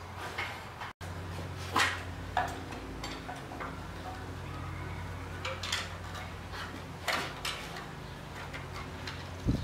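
Scattered light clicks and knocks as a power saw is handled and adjusted on a workbench, over a steady low hum; the saw is not running. The sound drops out completely for an instant about a second in.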